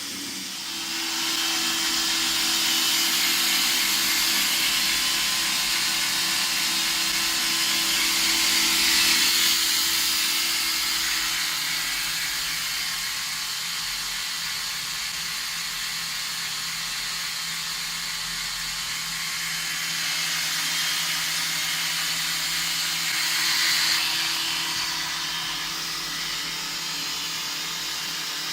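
Homemade belt grinder's electric motor running with a steady hum, under a loud hissing grind of the abrasive belt on a workpiece. The grinding rises about a second in and swells and eases a couple of times.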